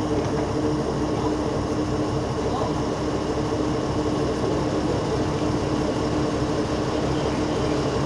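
Diesel engine of a Watarase Keikoku Railway 89-310 series railcar idling while the car stands at the platform: a steady engine hum with a constant pitch and a low rumble underneath.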